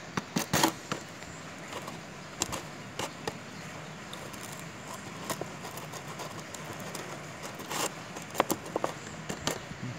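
Clear plastic jar being handled and tapped by hand, giving sharp plastic clicks and crinkles: a cluster in the first second, a few single ones, and another cluster about eight seconds in, over a steady hiss.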